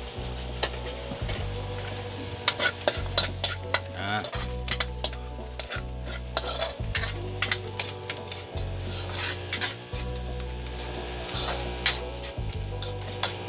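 Minced garlic sizzling in hot oil in a metal wok, stirred and scraped with a metal ladle that clinks sharply and often against the pan, over a low hum. The garlic is being sautéed until fragrant.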